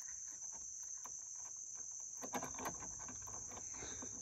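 A steady high-pitched insect chorus, with a few light metallic clinks about two seconds in and again near the end as a small steel chain is hooked onto an S-hook.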